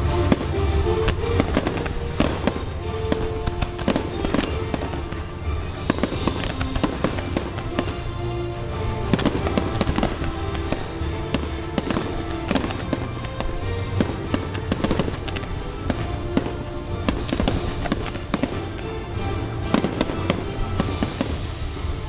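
Fireworks launching and bursting in rapid, repeated bangs and crackles over loud show soundtrack music with a steady bass.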